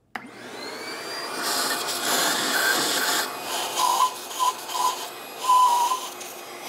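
Vacuum cleaner switched on, its motor spinning up with a rising whine, then sucking dust out of an engine's exhaust ports through a hose. The suction noise shifts as the nozzle moves from port to port, with several short whistles about four to six seconds in.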